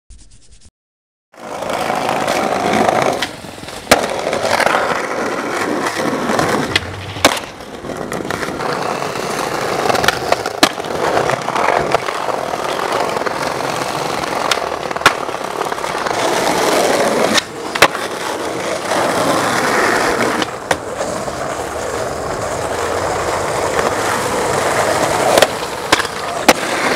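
Skateboard wheels rolling on pavement, starting about a second and a half in. Sharp clacks come every few seconds from the board popping off the tail and landing.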